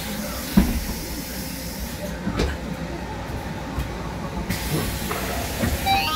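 Cabin noise inside a Higer electric minibus: a steady hiss over a low rumble, with rattles and a sharp knock about half a second in. A short rising whine comes near the end.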